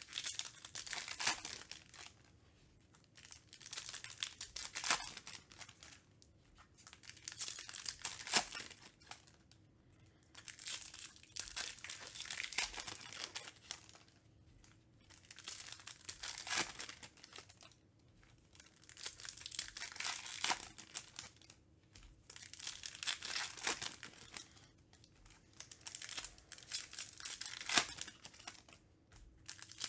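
Foil trading-card pack wrappers being torn open and crinkled by hand, in repeated bursts every couple of seconds with short pauses between.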